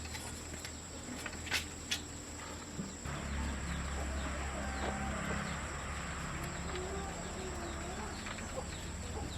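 Chickens clucking over a low steady hum that comes up about three seconds in, with two sharp clicks in the first two seconds.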